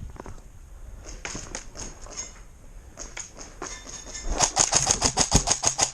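Airsoft gun firing: a few scattered shots, then a rapid string of about nine shots a second over the last second and a half.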